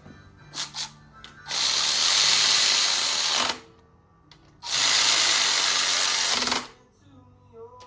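A handheld power tool running in two bursts of about two seconds each, with a few short clicks before the first.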